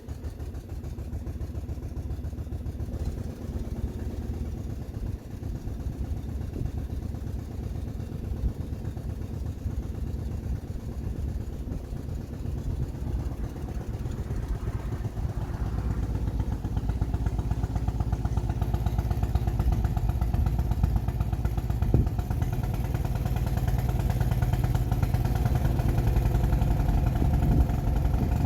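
12 hp MTD Snowflite snowblower engine running steadily, getting louder through the second half, with a single brief knock about two-thirds of the way through.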